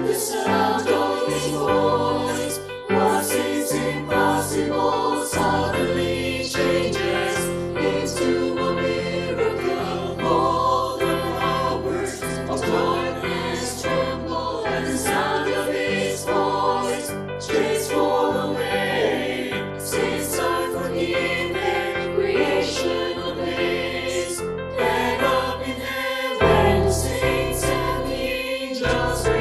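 Church choir singing a Christian worship song over instrumental accompaniment with a sustained bass.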